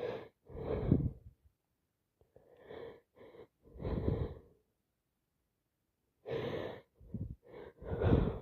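A person's short, heavy breaths, sighs and gasps as a sneeze builds and does not yet come. The breaths come in groups, with a pause of over a second before the last group.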